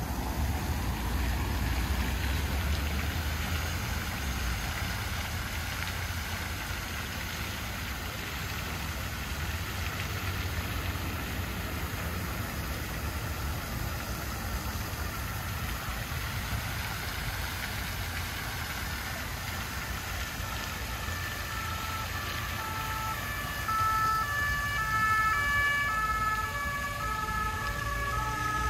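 Steady splashing of a large public fountain over the low rumble of city traffic. About two-thirds of the way in, an emergency vehicle's two-tone siren starts, alternating between two notes.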